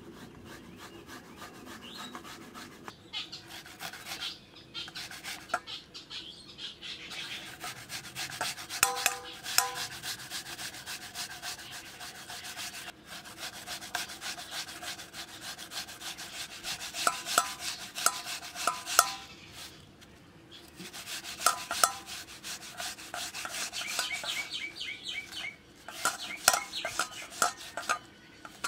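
Peeled apple rubbed back and forth on a flat stainless steel hand grater over a steel bowl: a continuous rasping of quick strokes, with brief metallic clinks now and then.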